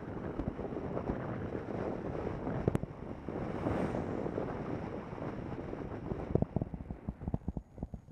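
Wind buffeting a bicycle-mounted camera's microphone while riding, over the rumble of tyres on asphalt. Near the end the wind eases and a run of irregular knocks and rattles comes in as the bike rolls onto rough, cracked pavement.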